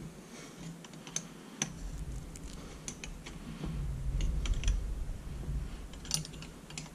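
Scattered light clicks and taps of a small hand tool working on a Sanden 709 automotive A/C compressor, with a low rumble of handling noise from about one and a half seconds in as the compressor is held and shifted on the bench.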